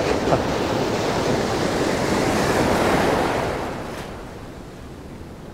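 Breaking surf washing through the shallows close by: a wave's wash swells, then falls away about three and a half seconds in.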